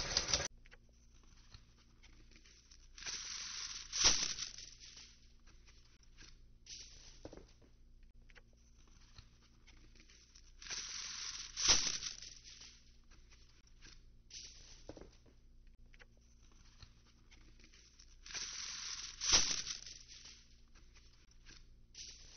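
Kitchen sounds used as a stand-in soundtrack for a printing press. Three times, a hiss of about a second ends in a sharp click, with a few lighter clicks between, over a faint steady hum.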